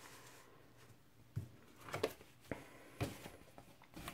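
An LP record jacket being picked up and handled on a wooden table: a handful of short knocks and rustles starting about a second and a half in.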